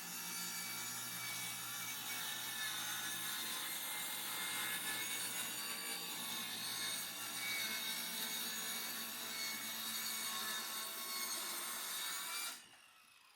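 Power tool working wood, running steadily with a high whine, then cutting off abruptly near the end.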